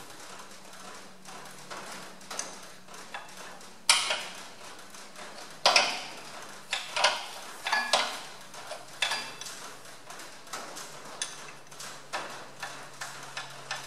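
Metal clicks and clinks of a spanner working a radiator mounting bolt loose, irregular throughout, with two sharper metal knocks about four and six seconds in. A faint steady hum runs underneath.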